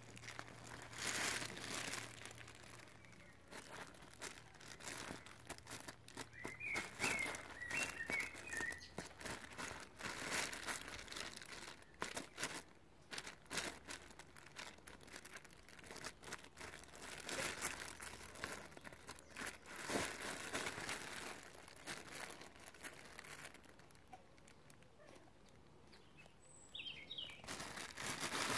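Fabric of a collapsible cat play tunnel rustling and crinkling in bouts as kittens scramble through and tug at it. A short bird twitter comes about seven seconds in, and a brief chirp near the end.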